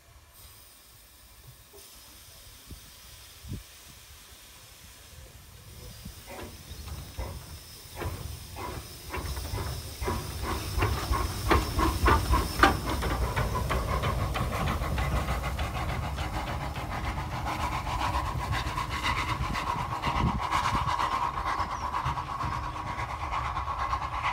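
Cockerill vertical-boilered tank steam locomotive moving off. After a quiet few seconds its exhaust beats and steam hiss begin about six seconds in and quicken as it passes close by. Then comes a steady hissing and rumble as it runs away along the track.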